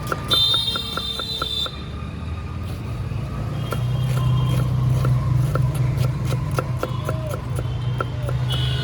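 Street traffic: a steady engine rumble, with a high, piercing tone for about a second and a half near the start and again briefly near the end. Sharp clicks come throughout.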